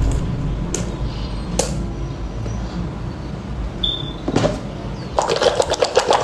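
Squishy toy being handled and squeezed: a few soft clicks, then dense crackling from about five seconds in, over a low hum.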